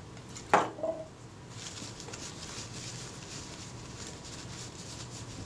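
Paper tissue rustling and scrunching as a small camera rangefinder bush is rubbed clean of old grease between the fingers: a fast, scratchy rubbing that starts about a second and a half in, after a single click.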